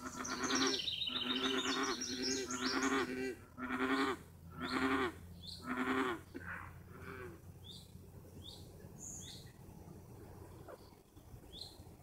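Frogs croaking: a run of low, bleating notes repeated quickly for about three seconds, then single notes about a second apart that fade out after about seven seconds. In the quieter second half a bird chirps a few times.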